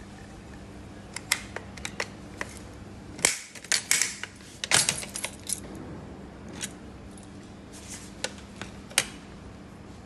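Keys jangling on a key ring and clicking against a metal letter box as a key is fitted and turned in its cam lock: a run of short metallic clicks and clinks, busiest from about three to five seconds in, with a last sharp click near the end.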